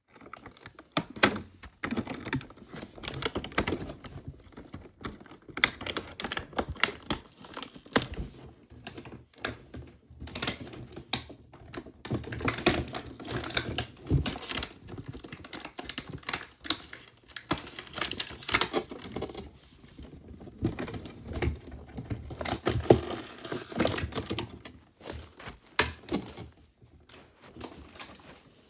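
Small plastic toy capsules and miniature items being handled and unwrapped by hand: a rapid, irregular run of light plastic clicks, taps and crinkling, with short pauses.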